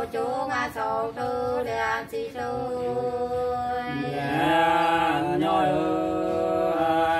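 Unaccompanied male singing of hát sli, the Nùng folk song sung in exchange between men and women, in long held, wavering notes. It swells louder about four seconds in.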